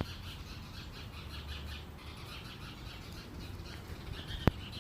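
A small bird chirping in a fast, steady series of short high notes, with a single sharp click near the end.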